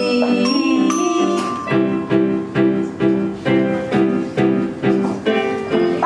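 Live instrumental music: an electronic keyboard holds a chord, then plays repeated chords a little over twice a second from about two seconds in, while a toy glockenspiel struck with a mallet adds high ringing notes near the start.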